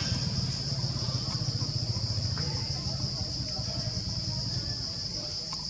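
Steady high-pitched insect drone, one unbroken tone, over a low pulsing rumble that eases after the first few seconds.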